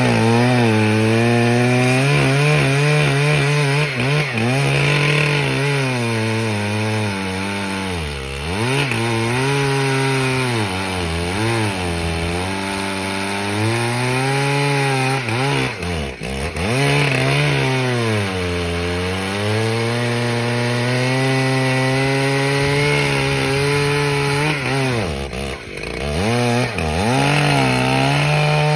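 Two-stroke chainsaw running at full throttle through a pine log. Its engine note sags several times as the chain bites into the wood and rises again as it frees up.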